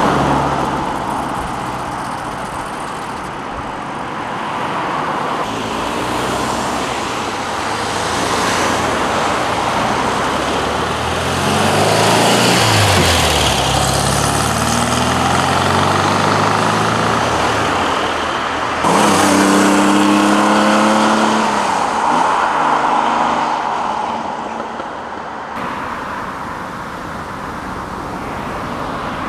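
Cars driving off and passing one after another, their engines accelerating and fading. About halfway through, one engine note drops in pitch as it goes by, and about two-thirds through, another engine pulls away hard.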